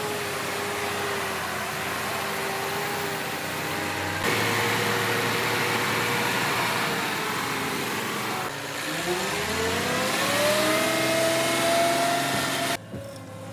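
A JCB machine's engine running, heard in short segments that cut abruptly about 4 and 8.5 seconds in and again near the end. In the last segment it revs up, its pitch rising over a couple of seconds before holding steady.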